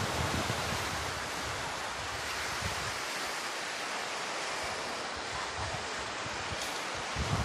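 Small sea waves breaking and washing up a sandy beach in a steady hiss. Wind buffets the microphone with low rumbles in the first second or so and again near the end.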